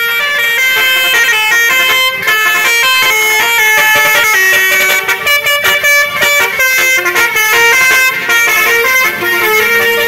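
Indonesian tour-bus 'telolet basuri' multi-tone horns playing a melody, loud, with notes stepping up and down every fraction of a second and sounding without a break.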